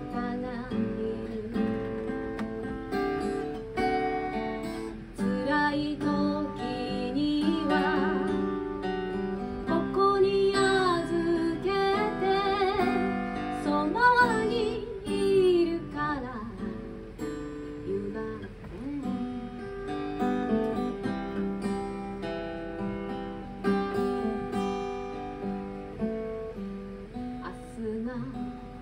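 A woman sings over her own strummed acoustic guitar in a live solo performance. Her voice is strongest about halfway through.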